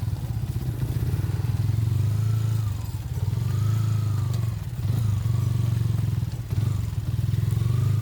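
A small engine running steadily at low revs, dipping briefly in level a few times.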